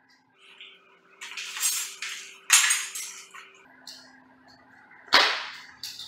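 Metal garage door opener rail parts handled on a concrete floor: a short scraping slide, then two sharp clanks about two and a half seconds apart, each ringing briefly.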